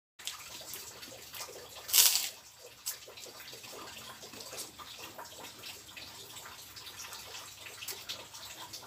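Close-up mouth sounds of eating with the hands: chewing and lip smacks, with one loud short crunch about two seconds in from biting a crisp cracker. Steady rain patters behind.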